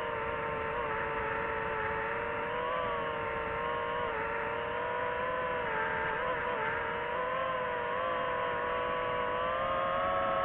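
DJI FPV quadcopter's motors and propellers whining steadily in flight, the pitch wavering slightly with throttle and rising a little near the end.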